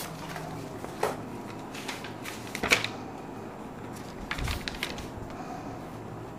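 Scattered light clicks and knocks over a faint steady room background, the loudest about two and a half seconds in and a short cluster of them a little past the middle.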